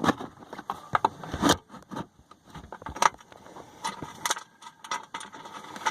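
Irregular metallic clicks, clinks and scrapes of a small 10mm bolt and washer being handled and started into the intake air box mount.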